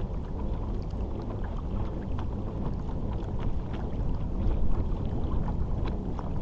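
A pedal-drive fishing kayak under way through calm water: a steady low rush of water along the hull, with faint scattered light clicks.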